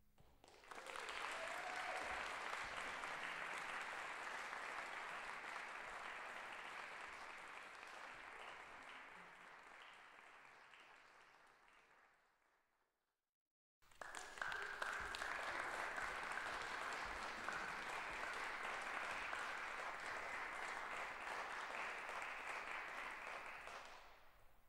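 Audience applauding. It starts about a second in and slowly fades out, then after about a second of silence it starts again abruptly and fades away near the end.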